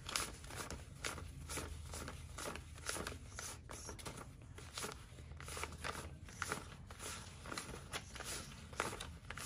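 Paper banknotes being counted by hand: a steady run of quick, irregular rustles and flicks as bills are peeled off a stack one after another.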